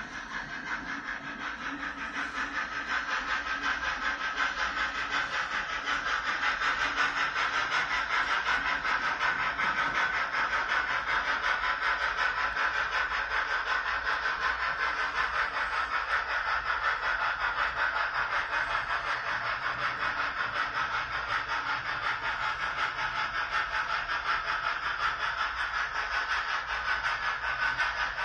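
Model train pulled by a steam locomotive running along the layout track: a steady rushing, hissing rolling sound that grows louder over the first few seconds, then holds.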